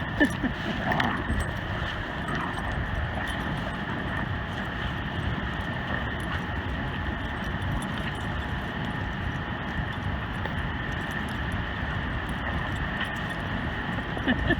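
Steady roar of a large waterfall, the Great Falls of the Passaic River, an even rushing noise that holds at one level throughout.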